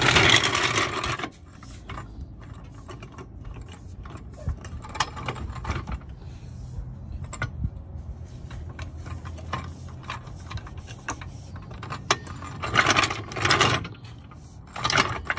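Pittsburgh hydraulic floor jack being worked under a car to raise it: a run of metal clicks and creaks, with louder bursts of noise at the start and again about 13 seconds in.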